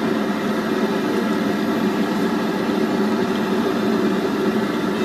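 Steady roar of a gas wok burner under a wok of deep-frying oil, running evenly without a break.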